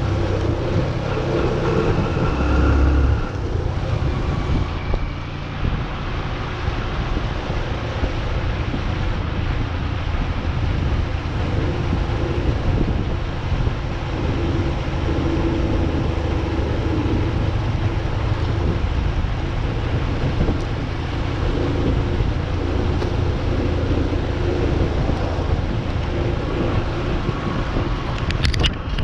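Wind buffeting the microphone over a steady low rumble, as when moving along a trail, with a brief click near the end.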